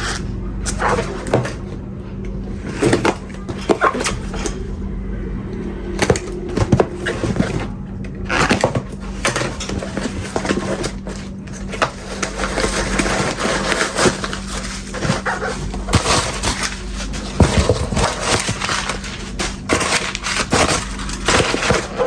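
A shipping parcel being opened by hand: packing tape and cardboard tearing, wrapping rustling, and repeated knocks and clatter as the contents are handled, over a steady low hum.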